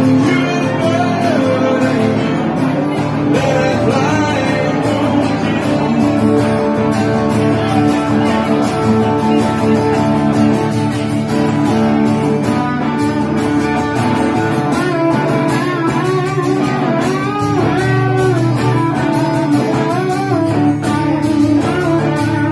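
Live band music: an acoustic guitar strumming the rhythm under an electric guitar playing a lead solo, with bent notes through the second half.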